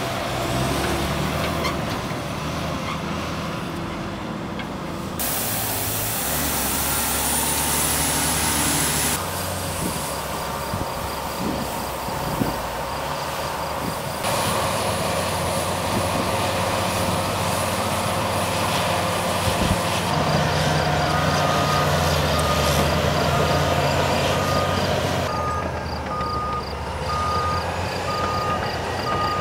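Trucks and heavy construction equipment running at a road construction site, the engine noise changing abruptly several times. Near the end a backup alarm starts beeping, about once a second.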